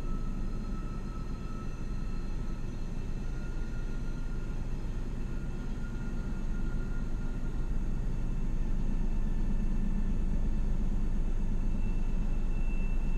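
A steady low rumble with a few faint, thin high tones above it, growing slightly louder over the second half.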